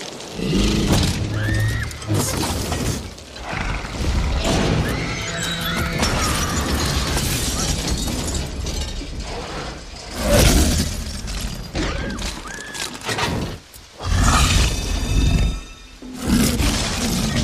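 A Tyrannosaurus rex roaring as it smashes a Ford Explorer tour car in the rain: glass shattering, then heavy crunching impacts as the car is rolled onto its roof, with high screams.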